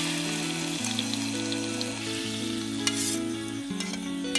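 Teriyaki sauce sizzling as it reduces in a frying pan over a gas camp stove. The sizzle is strongest at first and eases after about a second. A metal spoon stirs and clicks against the pan near the end, over soft background music.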